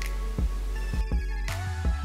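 Background music with a steady beat and bass; about a second in, a few falling sweeping tones pass over it.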